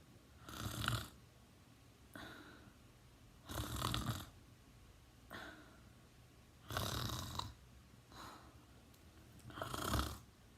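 A sleeping teenager snoring: four loud snores about three seconds apart, with a softer breath between each.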